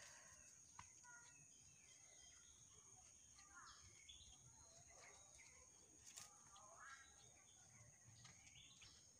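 Faint tropical forest ambience: a steady high-pitched insect drone with scattered bird chirps and calls, and a few light clicks.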